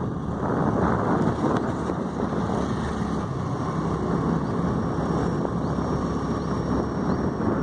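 Wind buffeting the microphone with road and vehicle noise while filming from a moving vehicle: a steady, even rushing noise.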